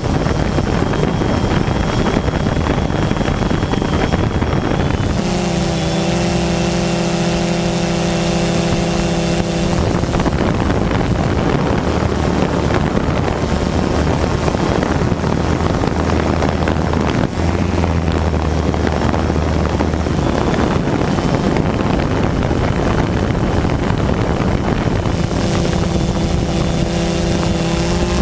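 Quadcopter drone's electric motors and propellers whirring, picked up by the camera on the drone itself. A steady rushing noise runs throughout, with a humming set of tones that comes in about five seconds in, drops out a few seconds later and returns near the end as the motor speeds change.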